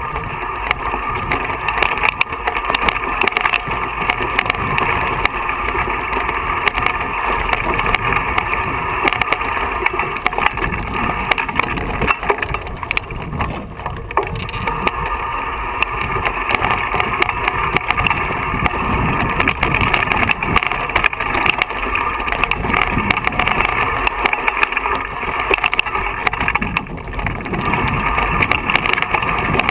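Mountain bike rattling and jolting over a rocky singletrack, with tyres crunching on loose stones and a constant clatter of knocks from the bike, picked up by a camera on the handlebars.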